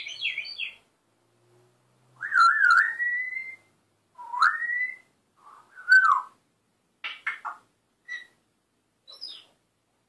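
African grey parrot imitating a siren with clear whistles that rise and fall in pitch: a wavering whistle sliding upward, another rising whistle, then a falling one. Short chirps come at the start and again near the end.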